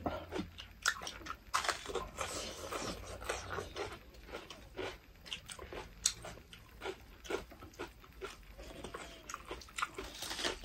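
Close-up eating sounds: crisp crunching bites into raw bell pepper and chewing of goat meat with rice, many short crunches at an uneven pace.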